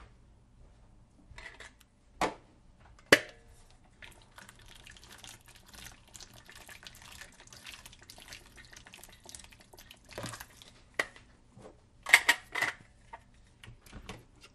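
Hot tap water running into a plastic bowl holding a persimmon in a stainless-steel sink, a steady hiss for about six seconds in the middle. Sharp knocks and clatter of the bowl and fruit being handled in the sink come before and after it, the loudest about three seconds in and a cluster near the end.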